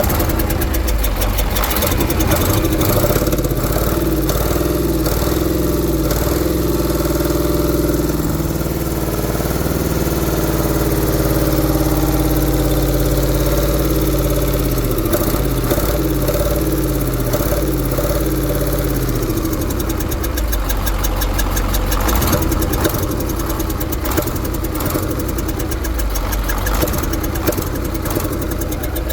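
KAMAZ truck diesel engine running with a knock in it. Engine speed rises and falls through the first two thirds, then settles to a rapid, steady knocking.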